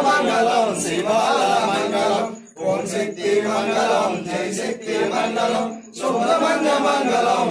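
Male voices chanting Hindu puja mantras in a steady recitation, broken by short pauses about two and a half seconds and six seconds in.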